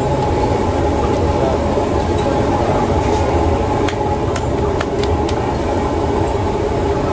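Busy street-food stall ambience: a steady, dense din of background voices and street noise, with a few sharp taps around the middle.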